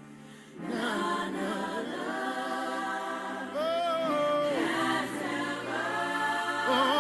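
Several voices singing a slow hymn in long held notes, one voice with a wide vibrato. The singing comes in about half a second in after a softer moment.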